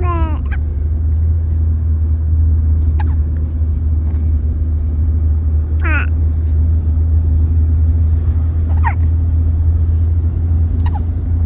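A baby hiccuping five times, roughly every two to three seconds, each hiccup a brief squeaky 'hic' that drops in pitch. A steady low rumble runs underneath.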